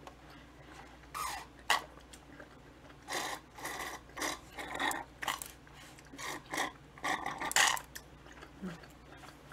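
Sucking through a straw from a small drink carton: a run of short slurps, about nine in all, with louder ones about a second and a half in and near the end.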